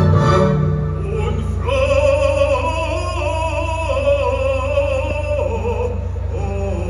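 Live classical concert music: an operatic singer holds long notes with a wide vibrato over instrumental accompaniment, entering about two seconds in after a loud opening chord.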